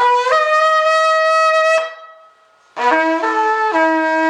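Yemenite shofar of spiraled kudu horn blown in two blasts. The first jumps up in pitch just after it starts and stops at about two seconds. After a short pause, the second shifts pitch a couple of times before settling on a lower held note.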